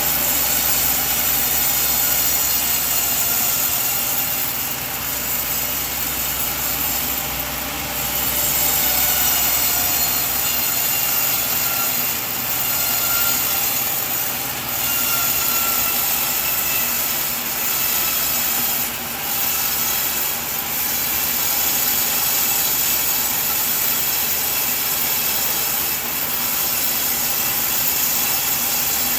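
Sawmill bandsaw blade cutting steadily through a coconut log, a continuous bright rasping noise. A low rumble underneath drops away about ten seconds in.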